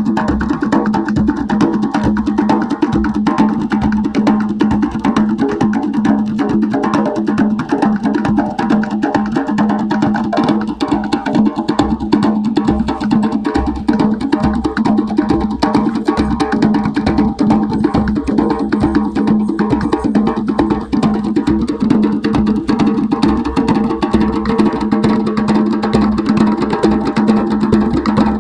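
An ensemble of djembe-style hand drums played together, a dense, steady rhythm of hand strokes.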